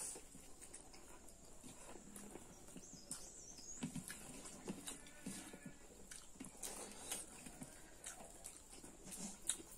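Close-up eating sounds of people eating pork curry and rice by hand: irregular soft wet clicks and smacks of chewing and lips.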